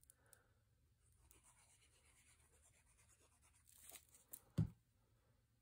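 Faint scratchy handling sounds of a liquid glue bottle's nozzle drawn along a narrow cardboard spine strip as a zigzag line of glue is squeezed out, with one soft thump about four and a half seconds in.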